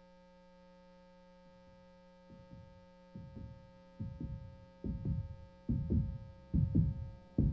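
A steady electronic hum with a heartbeat-like double thump, about seventy beats a minute, that fades in and grows louder and louder.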